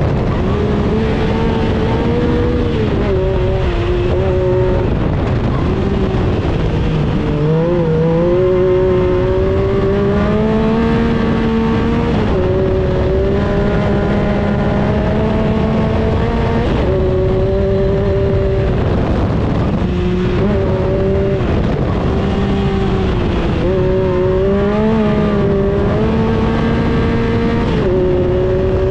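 Race buggy's engine running hard through an autocross run, heard from inside the open cabin. Its pitch climbs under throttle and drops suddenly several times as the driver lifts or shifts.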